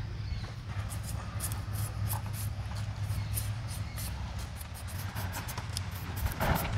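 Potatoes being cut into small pieces: a run of short, irregular light clicks of the blade going through them. Under it is a steady low rumble of wind on the microphone.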